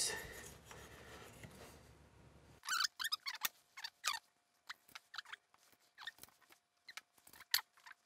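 A faint hiss fades over the first couple of seconds, then cuts off abruptly. After that come scattered light clicks and short, high, squeaky chirps over a faint steady hum, from hands handling and fitting the drum machine's circuit board.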